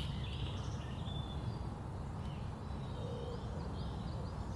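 Birds chirping and singing in a wood, short repeated high notes over a steady low background rumble.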